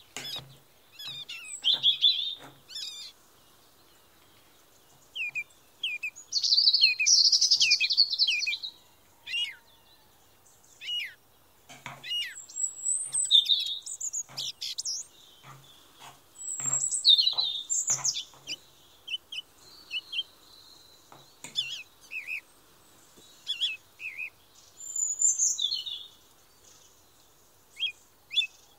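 Songbirds chirping and singing in bursts: short high whistles, quick trills and rising and falling notes.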